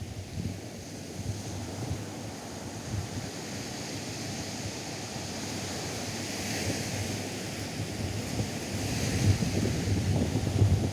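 Atlantic surf breaking and washing up a sandy beach, with wind buffeting the microphone. The wash of the waves swells about six seconds in and again near the end.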